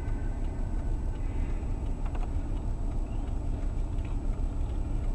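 Steady low rumble of a car's engine and cabin, picked up by a dash camera's microphone inside the car.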